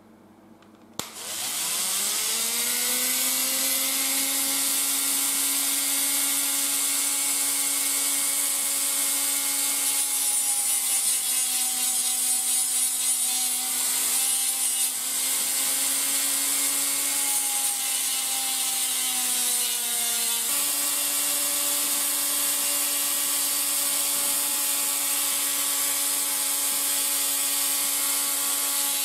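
Handheld rotary tool with a sanding disc switched on about a second in, whining up to speed and then running steadily with a hiss over the motor whine. Its pitch sags a little and steps back up about twenty seconds in.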